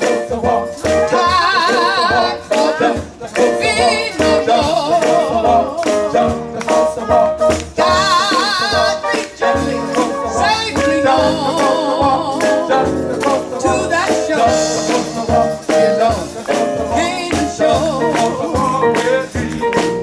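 Live gospel band playing: a woman sings lead into a microphone, her held notes wavering with vibrato, over electric bass, drums and a shaken tambourine keeping a steady beat.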